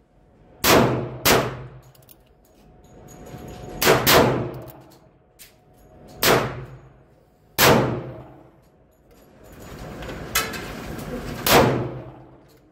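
Heritage Barkeep snub-nose single-action revolver firing inside an indoor range: about seven sharp shots, each with a short ringing echo, spaced irregularly a second or more apart, with two in quick succession about four seconds in.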